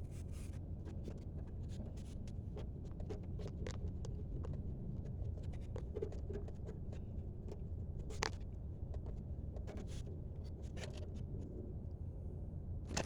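Scattered faint clicks and scrapes of hands working the rear ABS wheel-sensor wire into its bracket clip, with a sharper click about eight seconds in, over a steady low hum.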